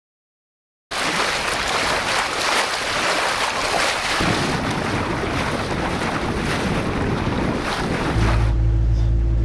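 After about a second of silence, a motorboat under way: water rushing and spraying along the hull, with wind buffeting the microphone. Near the end the boat's engine drone comes up, low and steady.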